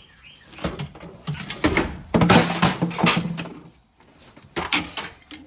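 Handling noises: scattered knocks and clunks, with a louder scraping rattle lasting about a second a couple of seconds in.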